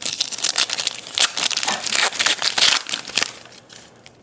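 A trading-card pack wrapper being torn open and crinkled, a dense crackle for about three seconds that dies away near the end.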